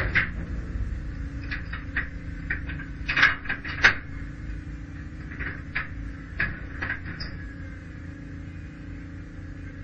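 Metal clinks and knocks of the M939A2 cargo truck's rear body fittings (latches, retaining pins and hanging chain) being handled and checked, a dozen or so sharp strikes that bunch together about three to four seconds in and then thin out, over a steady low hum.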